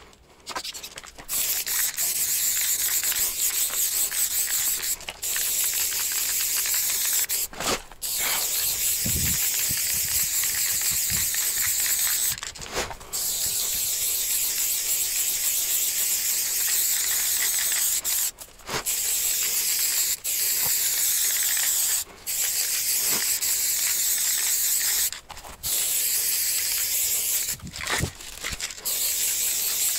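Aerosol spray-paint can hissing in long continuous sprays of several seconds each, broken by short pauses, as a throw-up is filled in on a wall.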